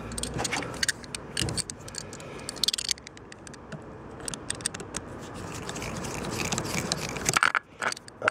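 A screwdriver turning the worm screw of a Jubilee clip (worm-drive hose clamp) on an air intake duct, loosening it with a run of quick ticks and scrapes. There are a couple of louder knocks near the end.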